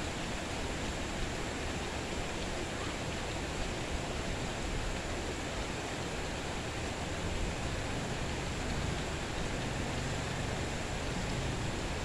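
Steady rain, an even hiss with no single drops standing out.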